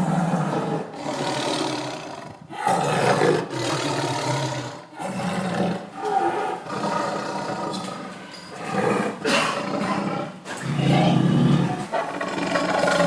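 A big cat roaring again and again, about nine roars each lasting one to two seconds with short gaps between them.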